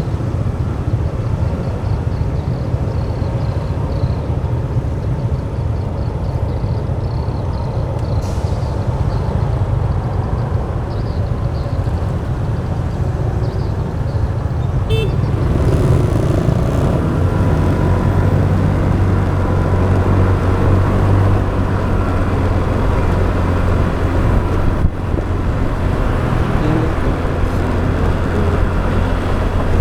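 Motorbike riding through city traffic: steady engine and road noise. A deeper, steadier engine hum comes in about halfway through.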